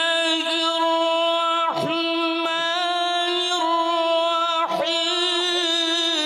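A male Quran reciter chants one long melodic note, holding the pitch steady with small ornamental turns. The note breaks off briefly twice.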